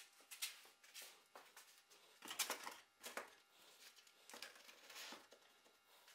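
Sanding belts and sanding sponges being handled and set into a small plywood box: soft rustling and light knocks, the loudest about two and a half seconds in.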